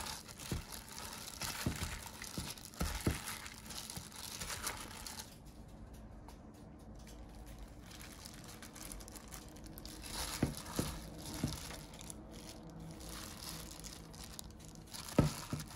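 Disposable plastic glove crinkling and seasoned chives and cucumber rustling as a hand tosses them in a stainless steel bowl and lifts them into a serving dish, with a few light clicks. It goes quieter for a few seconds in the middle, then the rustling picks up again.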